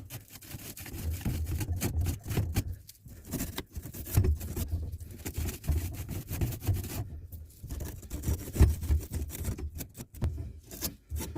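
Abrasive cloth rubbed hard back and forth on the end of a copper pipe, an irregular run of scrubbing strokes, cleaning the pipe before a compression repair coupler goes on.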